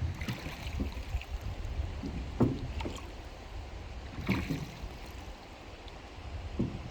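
River water moving, with a steady low rumble from wind on the microphone, and a few short knocks.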